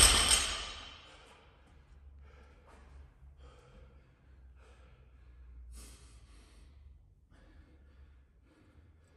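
A dropped barbell's plates rattling and ringing out, fading away within the first second. Then a man's heavy, irregular breathing and sighs from exertion as he rests crouched after a set of power cleans.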